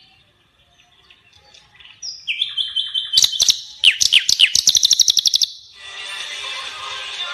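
Cage songbird singing from a bird-training track: after a quiet start, a few high chirps, then a loud, fast run of sharp repeated notes for about two seconds. Near the end a steadier, denser layered sound takes over.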